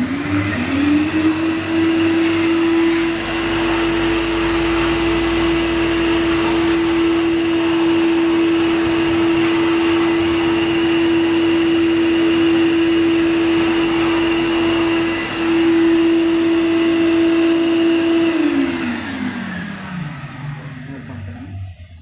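Wet-and-dry canister vacuum cleaner switched on, its motor whine rising quickly to a steady pitch over a loud rush of air. It runs for about eighteen seconds, dipping briefly twice, then is switched off and winds down with a falling whine.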